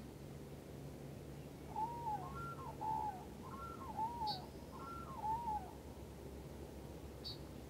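Geese honking: a run of about half a dozen arched calls between about two and six seconds in. A small bird gives a brief high chirp twice.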